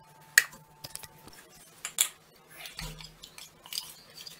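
Stainless-steel kitchen vessels and a steel ladle clinking: a few sharp metal taps, the loudest about two seconds in, then lighter clinks of the ladle against a steel bowl of batter near the end.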